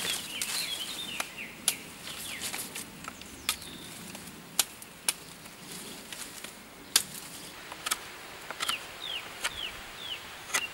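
Sharp snaps and knocks of dry dead branches being pulled and broken, scattered irregularly. A small bird calls in short, falling chirps, a quick run of them near the end.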